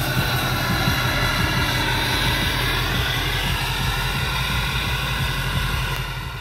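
Duramax V8 turbo diesel running steadily, heard at its exhaust: a low diesel clatter with a high whine over it, easing off slightly near the end.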